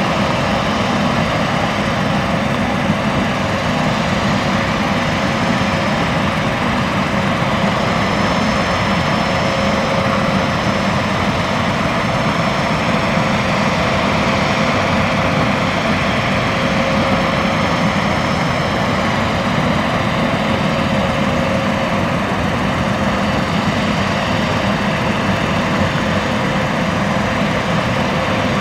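Boeing 767 on the ground with its jet turbines running steadily at low power: an even rumble with a faint high whine over it, holding constant with no rise or fall.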